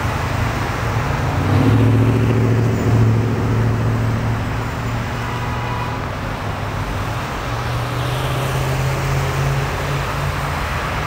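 Cars, SUVs and pickups driving around a roundabout at low speed, engines running and tyres on asphalt. A louder engine hum swells as a vehicle passes close about two seconds in, and again from about eight seconds.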